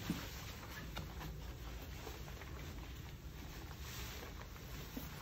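Faint rubbing of a disinfectant wipe across a granite countertop, with a few light clicks.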